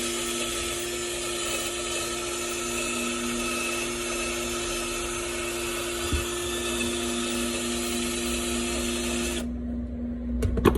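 Handheld power tool running steadily while cleaning old gasket material off a two-stroke cylinder's gasket surface, with a steady whine and hiss. It cuts off suddenly about nine and a half seconds in, followed by a few knocks near the end.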